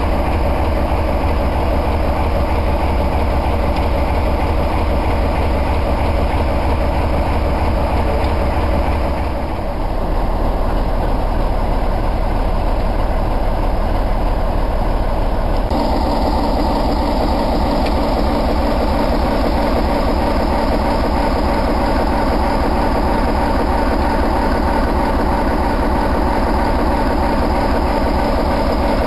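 Mainline diesel-electric locomotive idling, a steady low engine drone. The tone shifts about ten seconds in and turns brighter again about sixteen seconds in.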